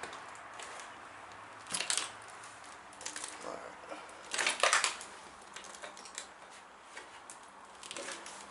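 Footsteps crunching and scraping over broken plaster and wood debris, with two louder crunches, about two seconds in and about four and a half seconds in, among smaller clicks and rustles.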